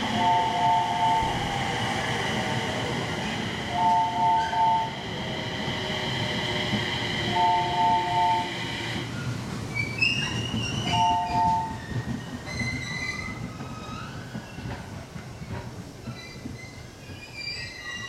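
JR East 701-series electric train pulling in along the platform and slowing to a stop: a steady high whine fades out about nine seconds in, then wavering squeals from the wheels and brakes come as it stops. A two-tone electronic beep sounds in groups of three short pulses, four times, every three to four seconds through the first twelve seconds.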